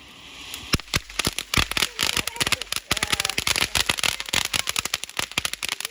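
Fireworks going off: after a brief steady hiss, a rapid, irregular string of sharp firecracker bangs starts less than a second in, many per second, and keeps going.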